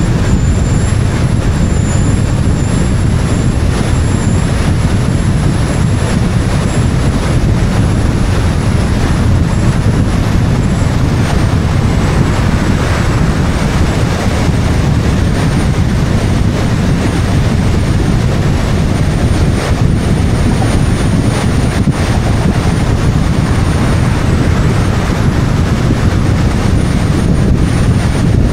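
Wind rushing over an outside-mounted microphone together with tyre and road noise from a car driving at speed: a loud, steady low rumble with a faint high-pitched whine above it.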